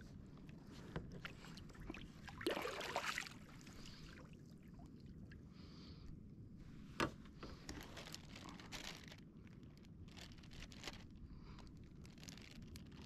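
Light water sloshing and lapping around a kayak, with a louder splash about two and a half seconds in as a paddle works the water, and a single sharp knock about seven seconds in.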